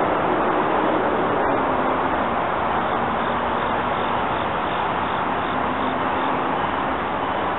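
Steady rushing noise of an electric passenger train approaching along the track. A faint, regular high-pitched ringing begins about three seconds in.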